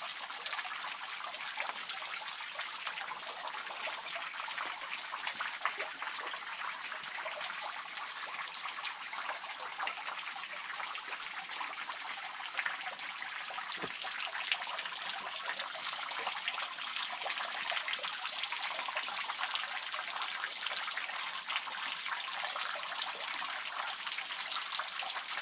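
Water dripping and trickling steadily from a natural spring, many small drips splashing as it runs off into a tiny stream.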